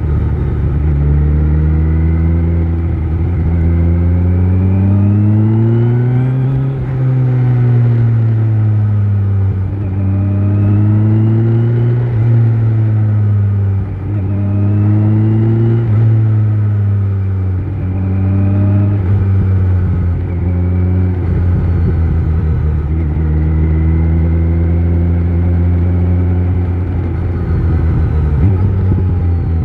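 Kawasaki Z900's inline-four engine through an Akrapovic exhaust, heard from on the bike while riding. The engine pitch climbs and drops several times as the throttle is opened and closed, then holds steady over the last several seconds.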